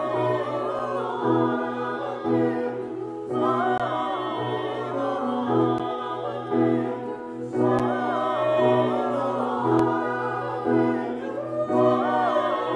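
Mixed choir of men and women singing in harmony with grand piano accompaniment, in phrases about four seconds long with short breaths between them.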